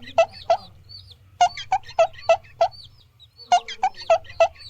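Chicken clucking: runs of short, sharp calls, about three a second, in three bursts with brief pauses between them.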